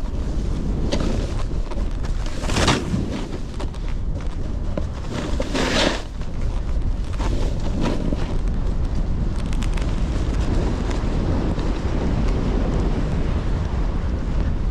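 Wind rushing over the microphone of a snowboarder riding downhill, with a steady low rumble. The board's edges scrape across the snow in hissing surges, the loudest about two and a half and six seconds in.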